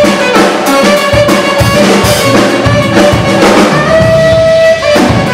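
Live band playing a slow R&B instrumental: saxophone lead over electric guitar, electric bass, keyboards and drum kit, with a long held note near the end.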